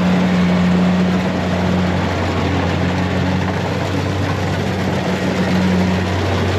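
An engine running steadily and loudly, with a constant low hum and a noisy mechanical rush over it.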